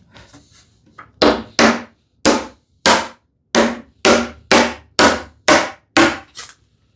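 Hammer blows seating the hand-cut dovetail joints of an ash cabinet case: about a dozen solid knocks, roughly two a second, starting about a second in.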